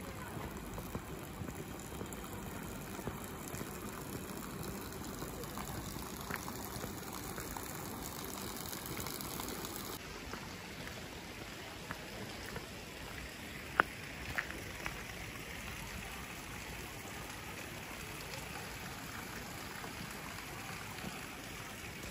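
A stream rushing steadily, with a single sharp click about fourteen seconds in.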